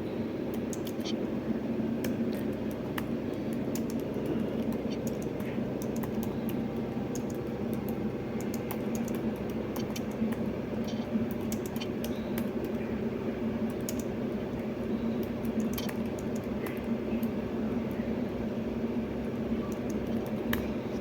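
Typing on the keys of a Slim Folio keyboard case: scattered, irregular key clicks over a steady low hum.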